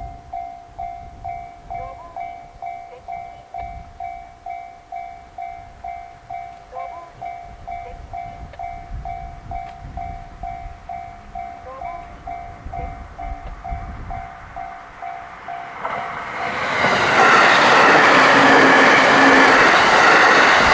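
Japanese railway level crossing's electronic warning bell ringing steadily, about two strikes a second. About 16 seconds in, a passing train rises over it and runs loudly past, drowning the bell.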